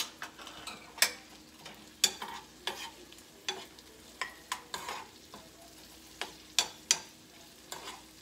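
A fork clicking and scraping against a small nonstick skillet in about a dozen irregular strokes while turning artichoke hearts and sun-dried tomatoes, over a faint sizzle from the pan.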